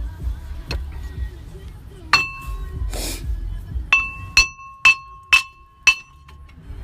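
Metal blows on a cast-iron brake rotor, each leaving a short bell-like ring. There is one about two seconds in, then five in quick succession about half a second apart.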